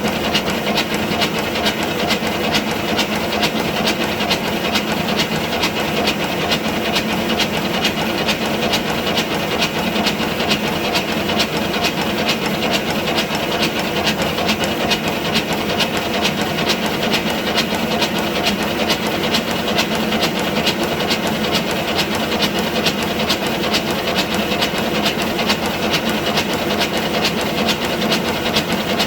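Five-inch gauge BR Class 9F live steam locomotive running on a rolling road: a rapid, even stream of exhaust beats over a steady hiss of steam.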